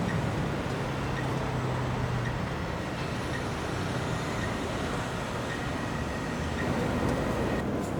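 Steady outdoor noise of a large construction site and city traffic: a continuous rumble and hiss, with a low engine hum fading out in the first couple of seconds and a faint high beep repeating about once a second.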